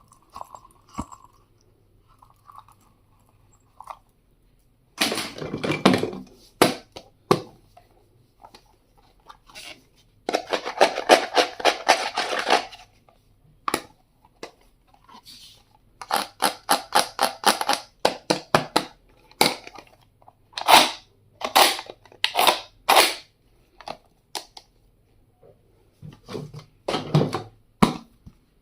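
Stationery items and their packaging being handled: stretches of crinkling and rustling, with runs of sharp plastic clicks and several louder snaps.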